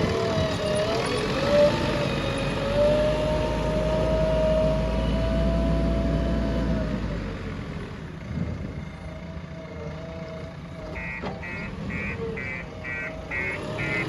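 JCB 3DX backhoe loader's diesel engine running hard under load, then easing off about seven seconds in. Near the end a repeating beep starts, about two to three a second.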